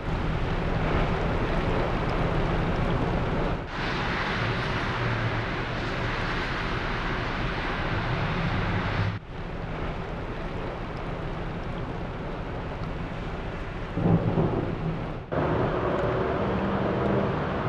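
Steady rain falling and splashing into puddles, a continuous even hiss that breaks off for an instant three times.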